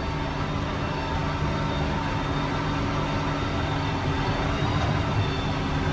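A heavy diesel engine idling steadily, with an even hum.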